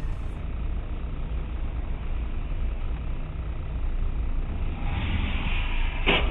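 A car on the move: a steady low rumble of engine and road noise. About five seconds in a hiss swells up, and near the end there is one sharp knock.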